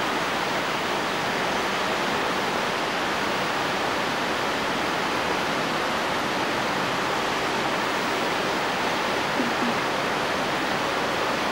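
Steady, even hiss of a large hall's background noise, with no music or speech.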